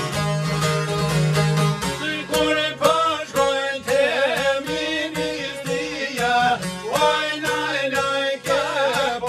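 Several long-necked lutes plucked together in a quick, steady rhythm, with a man's voice singing an Albanian folk melody with a wavering vibrato over them.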